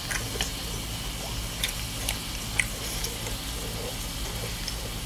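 Quiet eating sounds: a wooden spoon clicking and scraping against a stone pot of stew several times in the first half, then a mouthful taken from the spoon, over a steady low hum.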